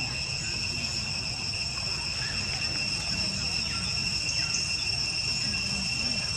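Steady, high-pitched insect drone, one even whine with an overtone, over a low background rumble.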